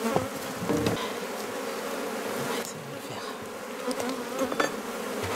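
Honeybees buzzing steadily around an opened hive, a low continuous drone, with a few light knocks as the wooden super frames are handled.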